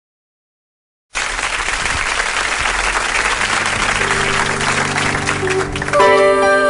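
Silence, then applause breaking out about a second in and running on; low held notes come in underneath, and near the end keyboard chords start the song as the applause dies away.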